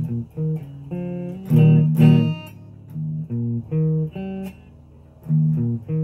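Solid-body electric guitar played as separate picked notes and short phrases, with two louder strummed chords about one and a half to two seconds in.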